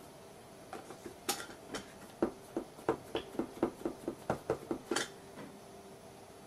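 An ink pad dabbed repeatedly against a polymer stamp mounted on a clear acrylic block: a few scattered clicks as the block is handled, then a quick run of about a dozen plastic taps, roughly four a second, as the stamp is inked.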